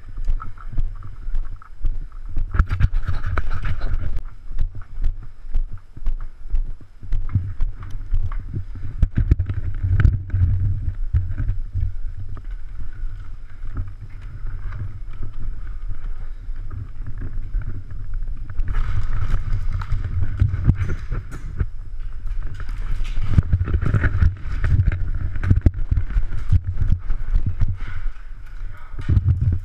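Footsteps and gear rubbing against a body-worn camera as the wearer moves: a constant low rumble with many small knocks and rustles, louder stretches of rustle a few times.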